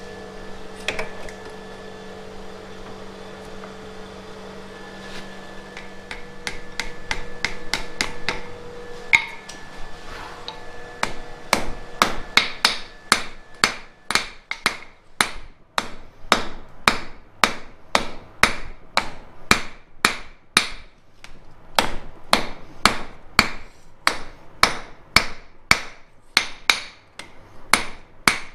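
Blacksmith's hammer striking red-hot steel on an anvil, sharp metallic blows at about two a second, starting about a third of the way in. Before that, a steady hum with a couple of single metal clanks.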